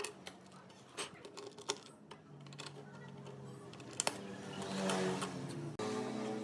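Black plastic parts of a pendulum clock movement clicking and snapping as they are pressed and fitted together by hand: a string of short, sharp clicks.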